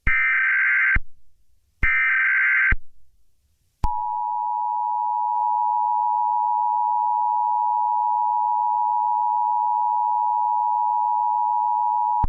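Emergency Alert System alert tones: two roughly one-second bursts of the SAME digital header's high data tones, then, about four seconds in, the steady two-tone EAS attention signal, held for about eight seconds before it cuts off suddenly.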